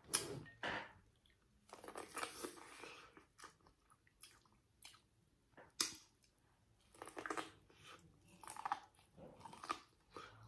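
A person biting kernels off a cob of boiled corn and chewing close to the microphone: irregular bursts of crunching and wet mouth sounds with short pauses between them, and a sharp click about six seconds in.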